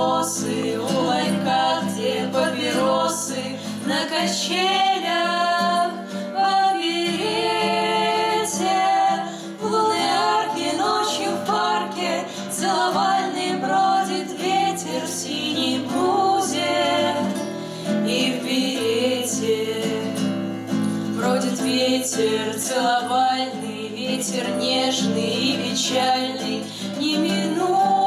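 Three female voices singing a bard song together, accompanied by a strummed acoustic guitar.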